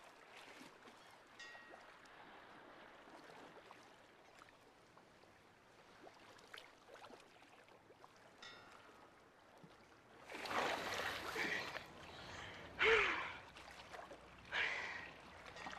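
Faint water ambience, then, from about ten seconds in, three loud breathy gasps at the water's surface, the middle one the loudest and with a short falling pitch.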